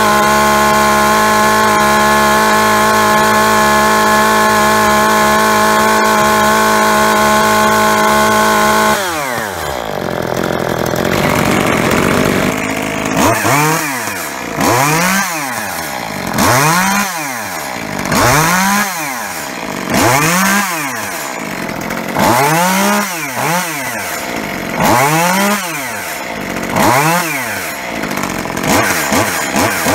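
Echo CS-2511TES top-handle chainsaw's two-stroke engine held steady at full throttle while its high-speed mixture is set, then dropping to idle about nine seconds in. From about thirteen seconds the throttle is blipped roughly every two seconds, each rev rising and falling quickly, a check of the saw's pick-up after tuning.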